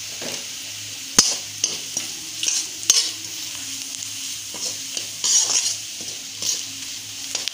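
Chopped onions frying in oil in a steel kadai, a steady sizzle, while a slotted metal spatula stirs and scrapes against the pan with sharp clinks, the loudest about a second in.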